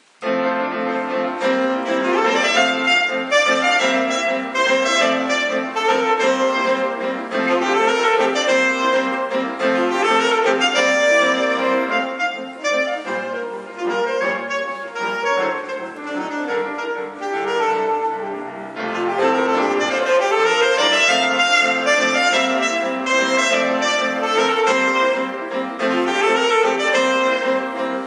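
Saxophone playing a melody with grand piano accompaniment. Both come in together abruptly at the very start.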